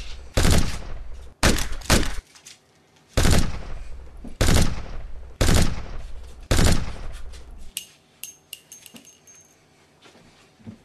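Gunshot sound effects: about seven loud shots roughly a second apart, each with a long fading tail. They are followed by a few quieter clicks near the end.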